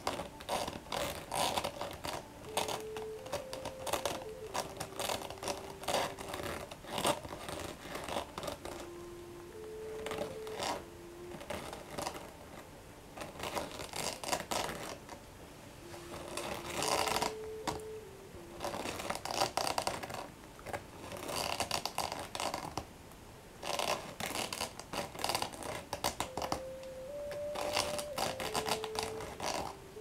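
Plastic snack bag crinkling and rustling close to the microphone as it is handled, in irregular bursts with short quieter gaps. A faint simple tune of single held notes plays underneath in several short phrases.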